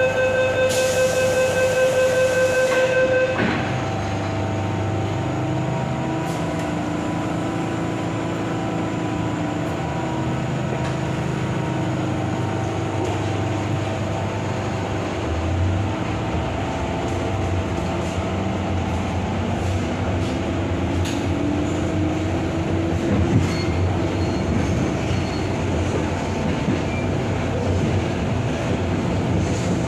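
MTR M-Train metro heard from on board. A steady warning tone with a hiss sounds for about three seconds, then the train pulls away, its motor whine rising slowly in pitch as it gathers speed over the rumble and occasional clicks of the wheels.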